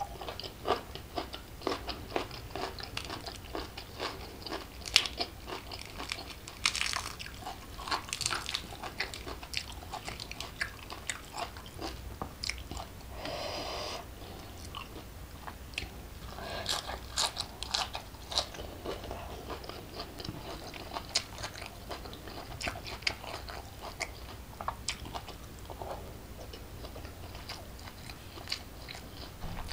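Close-up eating sounds: a person chewing and crunching raw salad vegetables and rice eaten by hand, with many small, irregular wet mouth clicks.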